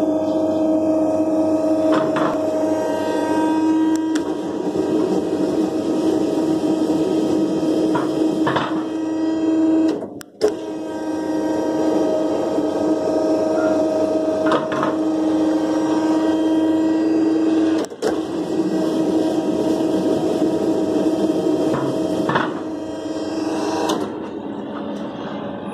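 The electric motor and hydraulic pump of an automatic road bollard's power unit run with a steady hum. There are a few faint knocks, the hum drops out briefly twice, and it is quieter in the last couple of seconds.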